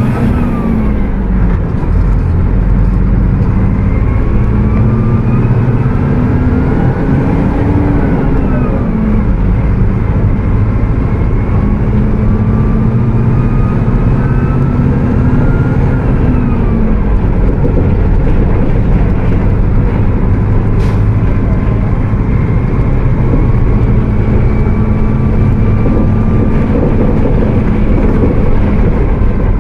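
Mercedes-Benz OF 1722M bus diesel engine pulling hard at high revs, climbing and dropping several times as it changes gear, with a high whine rising and falling along with it.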